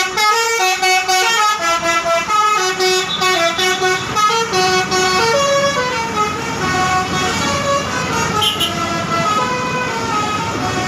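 A bus's multi-tone 'telolet' horn playing a quick tune of short stepped notes. The notes fade out after about seven seconds, leaving the rumble of engine and traffic.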